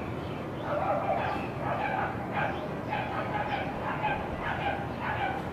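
A dog barking over and over, short yapping barks two to three a second, starting about a second in.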